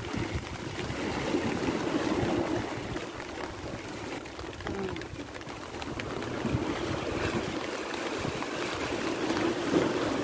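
Wind buffeting the microphone over the wash of sea waves breaking against a rock breakwater.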